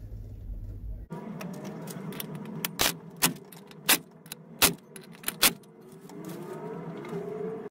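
Cordless ratchet running the pulley bolts into a new engine water circulation pump, with about five sharp metal clicks from the socket and bolts, and a rising motor whine near the end.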